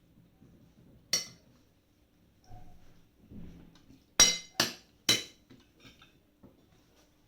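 Metal cutlery clinking against a plate or dish while eating: one sharp clink about a second in, then three more in quick succession a few seconds later.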